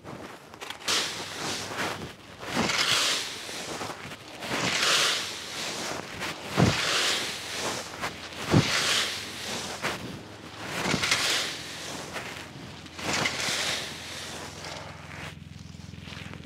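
Leaf rake dragged through a thick layer of dry fallen leaves in repeated strokes about every two seconds, each stroke a crisp rustling scrape, with a couple of short knocks as the rake hits the ground.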